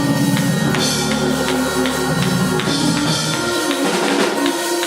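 Live church band music: sustained chords and low bass notes over a drum kit keeping a steady beat, with cymbal ticks about two to three times a second. The low notes thin out near the end.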